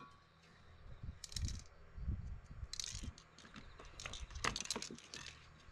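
Spray-paint work and handling: two short hisses of spray about a second apart, then a run of sharp clicks and rattles from cans and materials being handled, with dull knocks on the work table.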